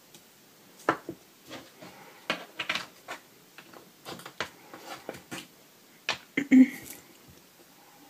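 Irregular light clicks and taps of a clear acrylic stamping block and a small plastic ink pad being handled on a cutting mat while a stamp is inked. The loudest knock comes near the end.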